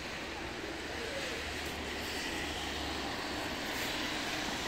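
Traffic on a rain-wet city street: a steady hiss of tyres on the wet road under a low engine hum, which eases off about three seconds in.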